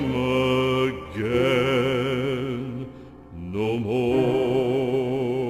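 Music: a voice singing long held notes with vibrato over a low steady drone, in two phrases with a short break in the middle.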